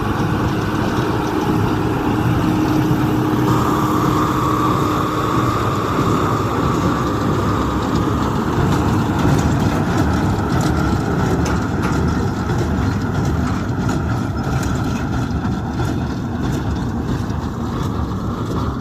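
Massey Ferguson 6475 tractor engine running steadily while working with a Welger AP630 baler, with scattered light clicks and knocks from about halfway through.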